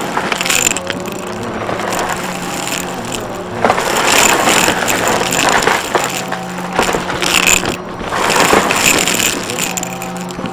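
Vacuum cleaner running with a steady motor hum as it is worked quickly back and forth, its noise surging louder every few seconds.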